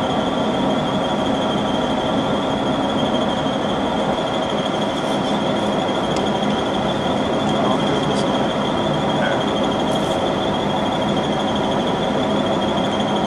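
Power metal shear's motor running steadily, a constant high-pitched whine over a lower hum, with a few light clicks.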